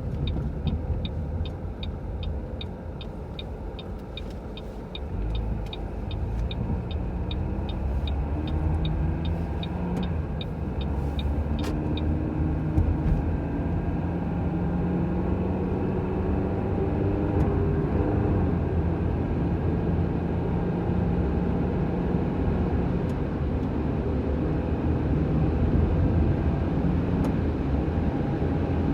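A car being driven, engine and road rumble steady, the engine rising in pitch as it pulls away. Over the first dozen seconds a turn-signal relay ticks about three times a second, then stops.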